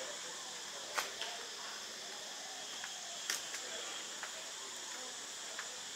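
Insects chirring steadily in a high, continuous drone. Two sharp clicks cut through it, about a second in and again near the middle.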